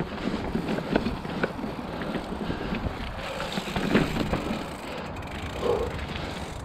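Sick Bicycles Dave hardtail mountain bike riding over a rocky, rooty forest trail: continuous tyre and frame rattle over a low rumble, with frequent sharp knocks as the wheels strike rocks and roots.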